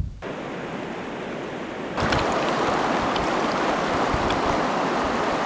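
Fast, shallow mountain river rushing over stones: a steady rush of water that comes in louder about two seconds in. Before that there is a softer steady hiss.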